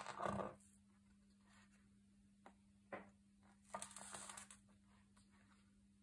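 Pages of a hardcover photo book being turned by hand: a short paper rustle at the start and a longer swish of a page flipping over a little past halfway, with a few light taps between. A faint steady hum lies under it.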